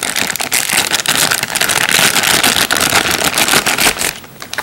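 Thin clear plastic bag crinkling and crackling loudly as it is worked by hand and pulled off a red dot sight, stopping about four seconds in.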